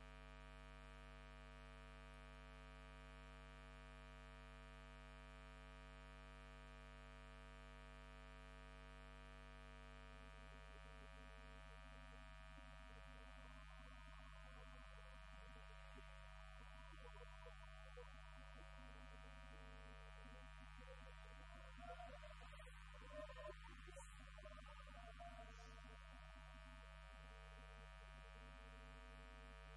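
Low-level electrical mains hum with a long stack of steady overtones. A faint mixed choir begins singing about twenty seconds in.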